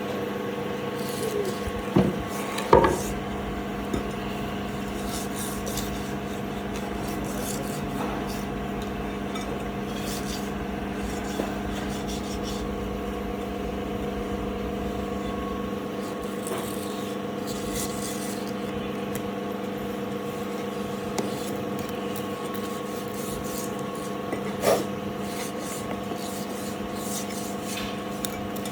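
Workshop machinery running with a steady hum, with rasping and scraping throughout. Two sharp knocks come about two to three seconds in, and another near the end.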